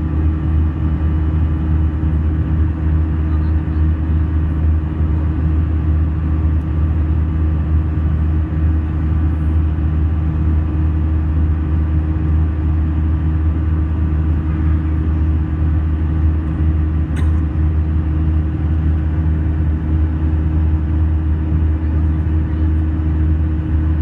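Steady cabin drone of an Airbus A320 in flight: engine and airflow noise with a strong deep hum and faint steady tones above it. A single sharp click about two-thirds of the way through.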